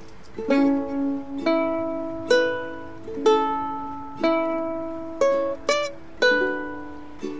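Ukulele playing slowly: a melody of single plucked notes, about one a second with a quick run of notes near the end, over softer held chords.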